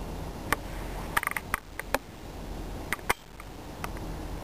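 Scattered sharp clicks and ticks, with a quick rattle of them a little over a second in, over a steady low hum.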